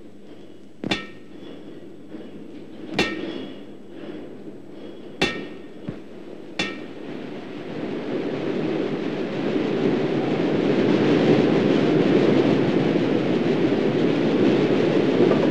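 Five ringing metallic clangs, like a hammer striking steel, spaced irregularly over the first seven seconds. From about eight seconds in, a broad, low rumbling noise from a steam locomotive on the move swells up and then holds steady.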